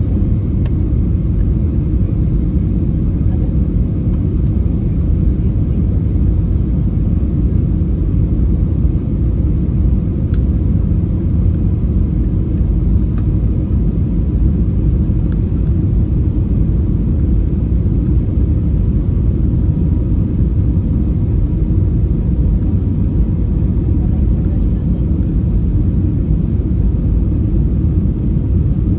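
Steady low rumble of an airliner in flight, heard inside the cabin at a window seat: engine noise and rushing air during the descent on the landing approach.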